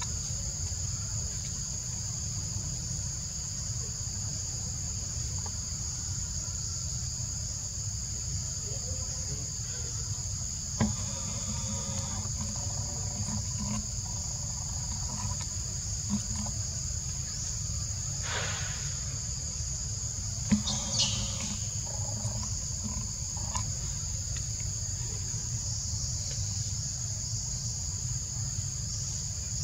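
Steady high-pitched insect chorus, over a constant low rumble, with a few short clicks and faint brief calls in the middle stretch.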